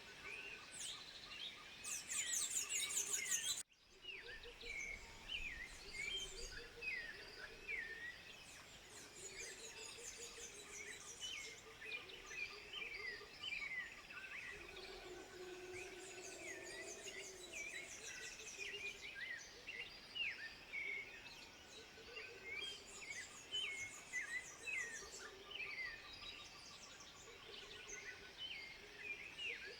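A chorus of many short, high chirping animal calls overlapping one another, with several louder runs of very high, rapid calls, and a brief dropout about four seconds in.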